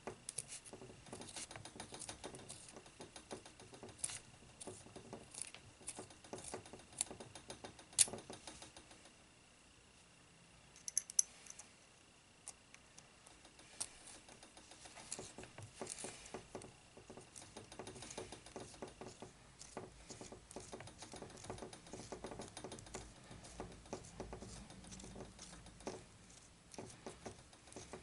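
Faint, irregular small metallic clicks and scrapes as a lens retainer is screwed down long fine threads into a Weaver G4 riflescope's eyepiece with a homemade retainer spanner. A sharper click comes about 8 seconds in, then a short lull with a brief rattle.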